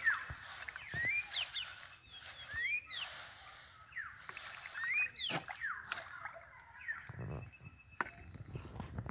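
Hands splashing and squelching in shallow muddy paddy water, with small knocks as fish are dropped into a plastic jug. Short rising chirps sound repeatedly in the background.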